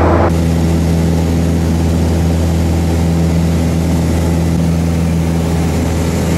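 Piper PA-28 Cherokee's piston engine and propeller droning steadily in flight, over a constant rush of air noise.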